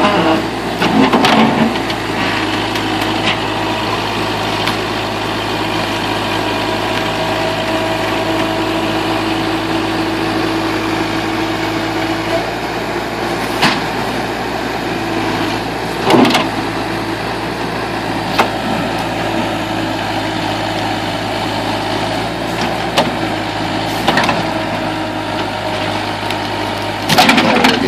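Backhoe engine running steadily as it works at digging out a stump, its tone shifting about twelve seconds in, with a few sharp knocks, one about 14 seconds in, one about 16 seconds in and one near the end.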